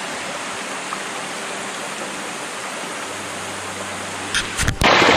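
Shallow stream running over rocks, a steady gentle rushing and trickling. Near the end come a couple of short knocks, then a sudden louder rush of noise.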